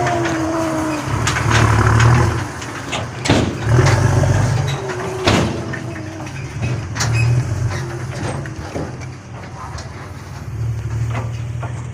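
A truck engine revving in repeated surges, several seconds apart, with scattered knocks and clunks.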